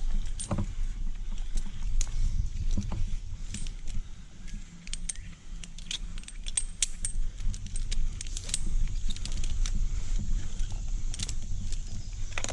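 Metal climbing and rigging hardware, such as carabiners and snaps, clinking and jangling in short scattered clicks over a low steady rumble.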